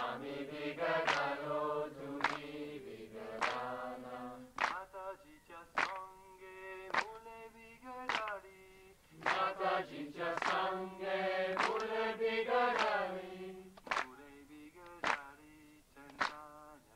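A group of voices singing a Marathi devotional song (bhajan) in long held phrases, over a sharp percussion beat that falls a little under once a second.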